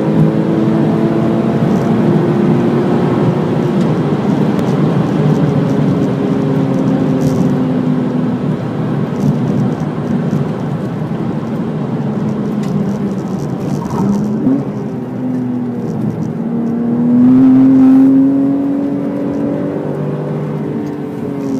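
Porsche Cayman S's flat-six engine heard from inside the cabin at track speed, over wind and tyre noise. The engine note sinks slowly as the revs come down in fourth gear. About two-thirds of the way through there is a short rising rev as the car shifts down, then the note climbs and grows louder under power in second gear near the end.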